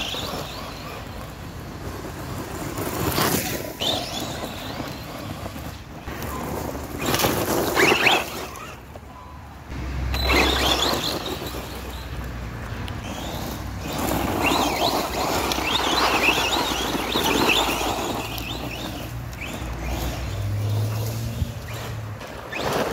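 Arrma Typhon RC buggy's brushless electric motor and drivetrain running in bursts of throttle, with tyres scrabbling on loose dirt, as the newly rebuilt rear differential is run in. Wind rumbles on the microphone.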